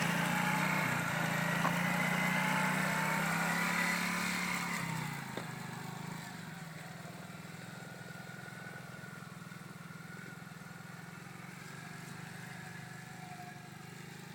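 Quad bike engine running, loud for about the first five seconds, then falling in pitch and getting quieter, and running on steadily at the lower level.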